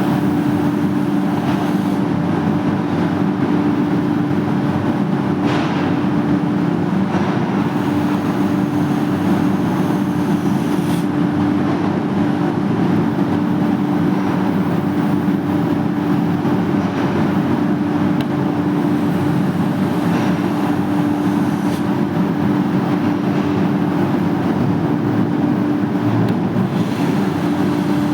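A machine motor running steadily, a constant hum over a dense even noise that does not change pitch or level.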